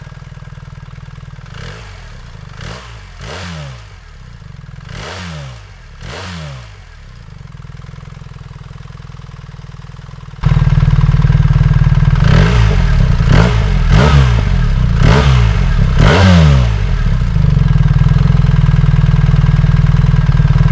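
BMW R1300GS boxer-twin engine idling with several quick throttle blips, first through the original BMW silencer. About ten seconds in, it switches to the black Remus 8.2 stainless steel slip-on silencer, which is much louder and is also blipped several times.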